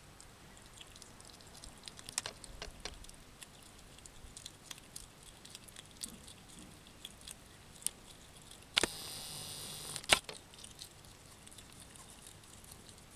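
Hedgehog snuffling and foraging at the ground: faint scattered clicks and ticks. About nine seconds in, a loud steady hiss lasts just over a second, opening and closing with a sharp click.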